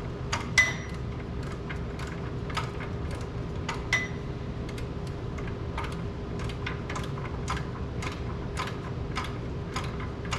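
Socket ratchet clicking in an even rhythm, about two to three clicks a second, as a nut on the tractor's tie rod end is backed off, with two sharper metallic clinks, about half a second in and again about four seconds in.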